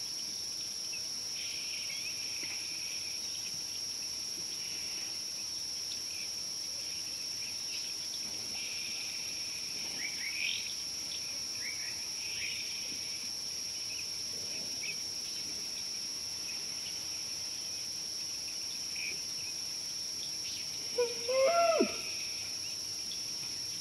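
Steady high-pitched drone of insects, with scattered short bird chirps. Near the end comes a short, loud animal call that falls in pitch.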